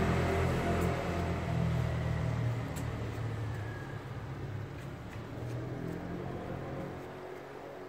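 Low engine rumble of a passing vehicle, fading steadily as it moves away.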